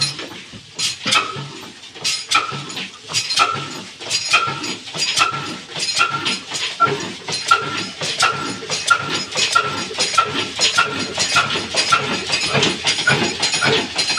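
Old single-cylinder horizontal diesel engine with a heavy flywheel, just hand-cranked, running with a sharp knock on every stroke, the beat quickening toward the end as it picks up speed.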